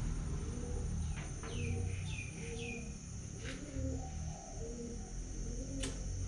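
A dove cooing over and over in a steady repeated phrase, with three short falling whistles from another small bird about a second and a half in. A few sharp clicks, fitting a lighter being struck, come at about one second, three and a half seconds, and near the end.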